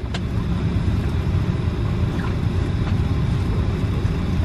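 Steady low rumble inside an airliner cabin on the ground, with a faint click shortly after the start.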